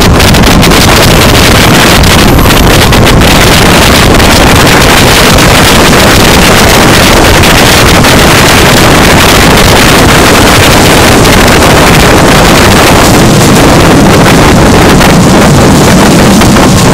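Loud, steady rush of wind buffeting the microphone held out the side of the moving Lodaya passenger train, over the train's running noise.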